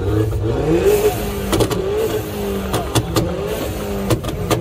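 Car engine revving repeatedly, its pitch rising and falling, with several sharp cracks in pairs.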